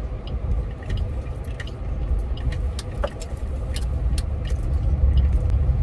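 Car being driven, heard from inside the cabin: a steady low road and engine rumble, with scattered light ticks and rattles.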